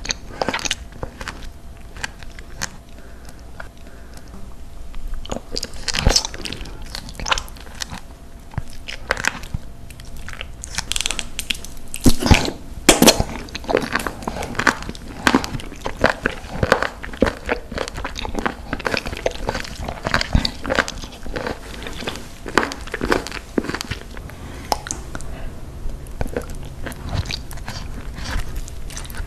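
Close-miked eating of octopus: wet chewing, sucking and biting on the tentacles, heard as many sharp, irregular clicks and smacks.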